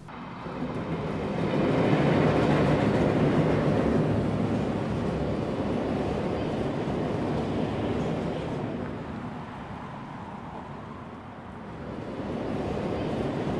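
Steady rumbling noise that swells in over the first couple of seconds, eases off about ten seconds in, and builds again near the end.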